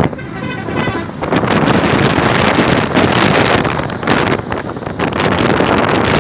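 Wind buffeting the microphone of a moving motorcycle, mixed with engine and road noise and the sound of a truck being overtaken. A short pitched tone sounds in the first second.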